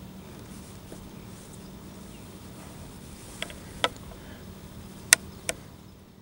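Percussion lock of a Pattern 1853 Enfield rifled musket being cocked: its hammer is drawn back with four sharp metallic clicks in two pairs, the loudest about five seconds in. A steady faint background hiss runs underneath.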